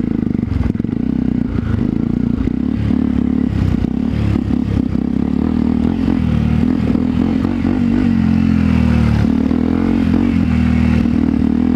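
Small motorcycle engine running under way at a fairly steady speed, its note wavering a little as the throttle changes. Loose gravel and the bike's chassis clatter in short clicks, mostly over the first half.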